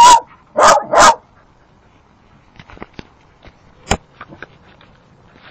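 A dog barks three times in quick succession at a cornered possum. Faint clicks and light knocks follow.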